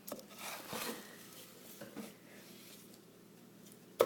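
Faint rustling and handling noises as ingredients and utensils are moved about. One sharp clack comes near the end.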